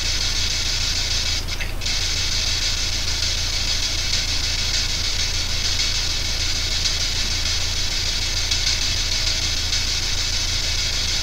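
P-SB7 spirit box sweeping radio bands, giving a steady loud hiss of static that briefly drops out about one and a half seconds in, over a low electrical hum.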